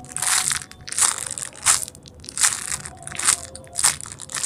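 Plastic packaging of a squishy toy crinkling as it is squeezed and handled, in a series of short crackles about one every 0.7 seconds.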